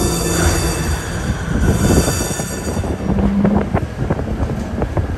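Historic electric streetcar heard from inside the car while it runs. A high wheel squeal fades out about three seconds in, leaving the rattle and clicking of the car over a low hum.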